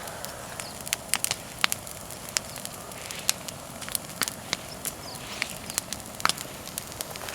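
Bonfire of persimmon wood crackling: irregular sharp pops and snaps, several a second, over a low hiss of burning.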